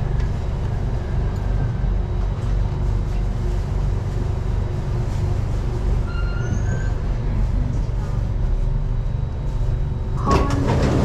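Underground MRT train rumbling steadily as it slows to a stop at a station platform, with a few faint high brake squeals about six seconds in. About ten seconds in the doors begin to open with a sudden clatter and clicks.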